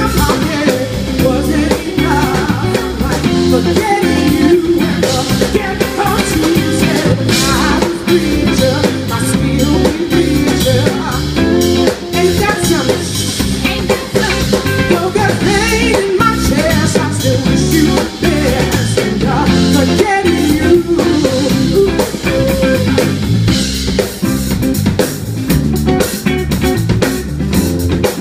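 Live band playing through a PA system: a drum kit keeping a steady beat under electric guitar.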